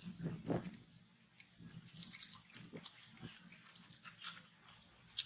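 Irregular crunching and crackling clicks, densest about two to three seconds in, with a few soft low thuds among them.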